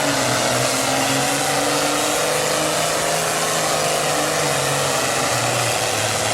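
Super farm pulling tractor's heavily modified diesel engine running hard at high revs, a loud steady run with its pitch wavering slightly.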